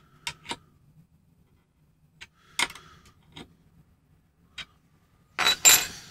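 Small spanner working the nuts on a threaded steel rod as they are tightened: a handful of scattered sharp metallic clicks, some with a short ring. A louder rustling burst comes near the end.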